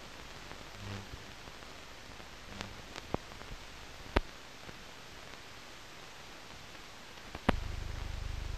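Low-level hiss and crackle of a 1930s optical film soundtrack, broken by a few sharp clicks. A loud click near the end is followed by a steady low hum.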